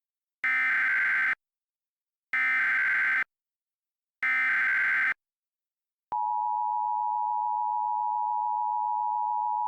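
Emergency Alert System header: three bursts of SAME digital data tones, each just under a second long and about a second apart. About six seconds in, the steady two-tone EAS attention signal starts, announcing an emergency alert message.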